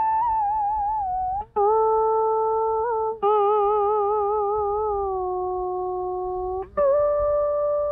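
Instrumental melody from a vọng cổ karaoke backing track: a stringed instrument plays four long held notes that waver and slide in pitch, each note starting with a pluck.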